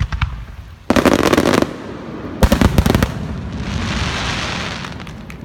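Aerial fireworks bursting: a sharp bang, then two salvos of rapid crackling, followed by a high hiss that swells and fades away.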